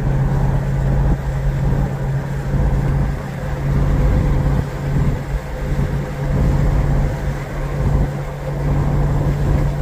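Cabin noise inside a Ram TRX pickup cruising at about 60 mph: a steady low drone from its supercharged 6.2-litre V8 and the tyres, over road noise.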